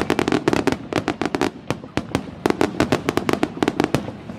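Fireworks shells bursting in rapid succession: a dense run of sharp bangs and crackles, thinning briefly about two seconds in.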